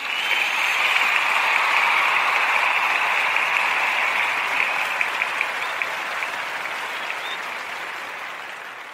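Applause that swells up within the first second and then slowly dies away, with a few single claps standing out about five seconds in.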